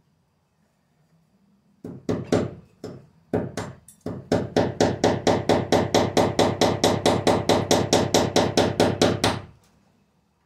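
A hammer driving a nail into the wall: a few uneven taps, then a steady run of quick blows, about five a second, for some five seconds.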